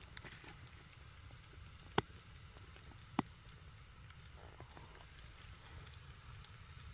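Portable propane grill burning steadily with a low rumble and faint sizzle from burger patties on the grate, and two sharp pops a little over a second apart.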